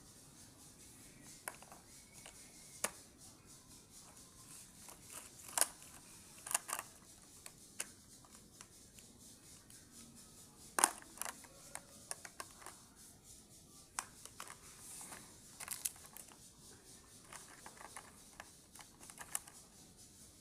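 Scattered light clicks, taps and rustles of a colour box and its packaging being handled, with the sharpest clicks about six and eleven seconds in.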